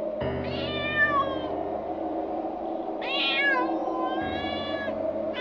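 Two drawn-out, meow-like animal cries, each about a second long, rising and then falling in pitch, over a steady low drone. A third cry begins at the very end.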